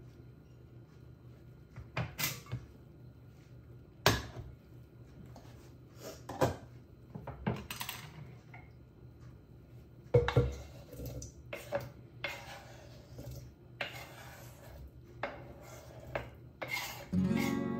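Cooking-prep sounds: a stainless steel pot, utensils and a wooden cutting board knocking and clinking now and then, with scraping as a knife pushes chopped tomatoes off the board into the pot near the end. Background music comes in just before the end.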